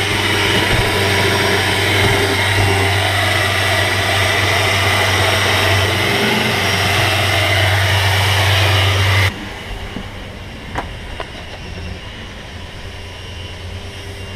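Loud steady machine noise with a strong low hum, cutting off suddenly about nine seconds in. After that a quieter background with a few sharp knocks.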